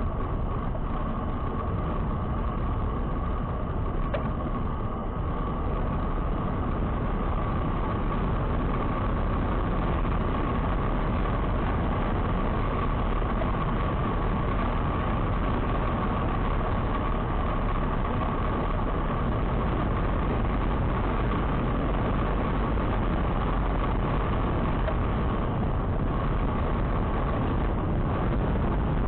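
Steady running noise from a moving vehicle: engine and road rumble with a constant whine, unchanging throughout.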